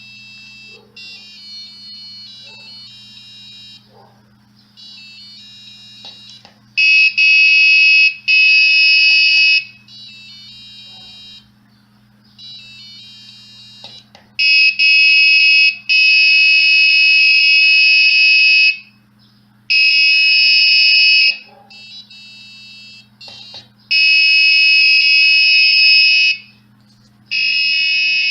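Arduino-driven buzzer and piezoelectric disc sounding high electronic tones in bursts of one to three seconds with short gaps. Quieter bursts alternate with much louder ones as the output switches between the two components. A steady low hum runs underneath.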